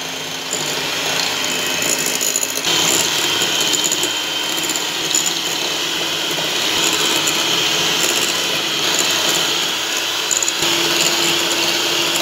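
Handheld electric mixer running steadily, its twin wire beaters creaming a block of butter in a glass bowl. The motor's pitch shifts slightly about three seconds in.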